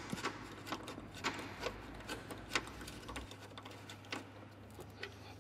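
Irregular light metallic clicks and ticks of a hand wrench being worked on a rear-subframe bracket bolt, thinning out after about three seconds.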